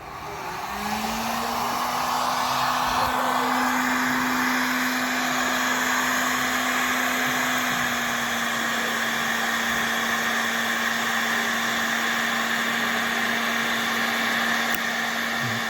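Handheld hot-air blower running steadily with a motor hum, heating a water heater thermostat's cutoff temperature limiter to make its reset button trip.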